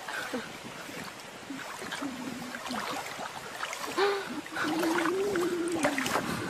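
An animal's vocal calls: a short held call, a brief rising one, then one long wavering call near the end.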